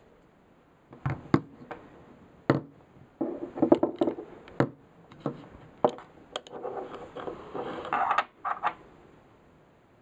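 Sharp metallic clicks, knocks and rattling from a Röhm RG3 6 mm flobert starter pistol being handled on a wooden table as it is taken apart, its pin drawn and its cylinder removed, with some scraping near the end.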